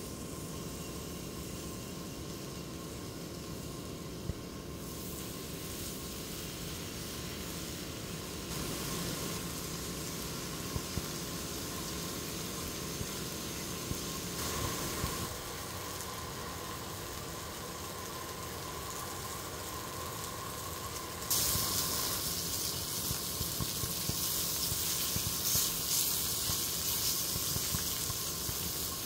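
Food sizzling in a hot pan or on a grill, a steady hiss that becomes louder and brighter with small crackles for the last several seconds.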